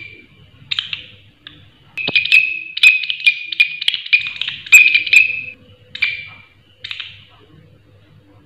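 Green leaf-winged katydid (bush cricket) stridulating: short, harsh, high-pitched rasping chirps, a few spaced ones, then a fast run of them from about two seconds in, slowing to two last chirps and stopping about seven seconds in.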